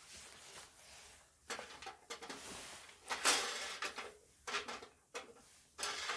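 Irregular scraping and knocking of parts being handled, with a burst of scraping about three seconds in and several sharp knocks after it.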